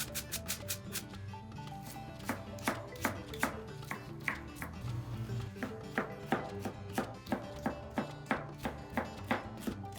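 Kitchen knife chopping vegetables on a cutting board, first a quick run of strokes, then slower regular strokes about two or three a second, over background music.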